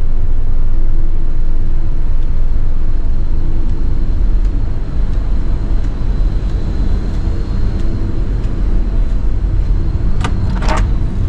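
Steady, loud low rumbling noise on board a river cruise ship, with a brief higher-pitched sound a little after ten seconds in.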